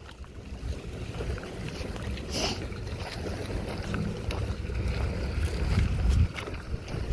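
Wind buffeting the microphone, a low uneven rumble that swells and drops.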